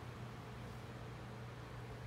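Room tone: a steady low hum over an even hiss, with no speech.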